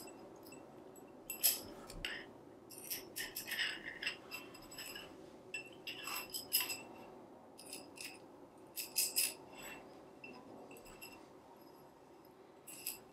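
Metal tube struts of a tensegrity model clinking and tapping against each other in scattered groups of light, ringing clicks as the tensioned cords are hooked into the strut ends.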